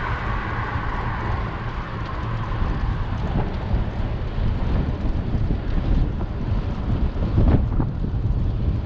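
Wind buffeting the microphone of a camera on a moving bicycle: a steady low rumble, with a few knocks about seven and a half seconds in.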